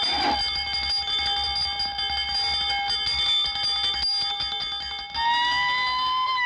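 Cartoon sound effect of an electric alarm bell ringing steadily, the sign that a bank robbery has been detected. About five seconds in it gives way to a police siren that rises in pitch.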